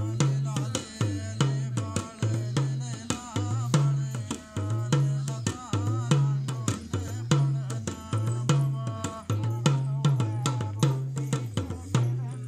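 Folk dance music: fast hand-drum strokes over a low beat that repeats a little more often than once a second, with a wavering melody line on top.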